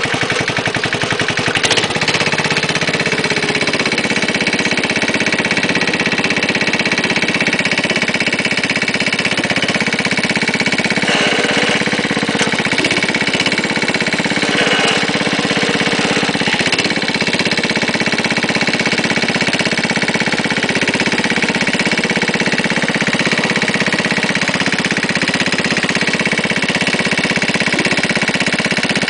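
Wheel Horse garden tractor's small engine running steadily under way, a constant even drone with no breaks.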